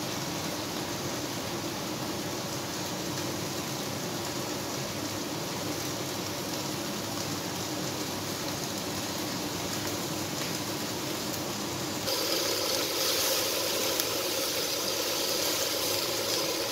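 A steady hum and hiss, then about twelve seconds in a louder, brighter sizzle of beef and vegetables frying in a hot pan as they are stirred.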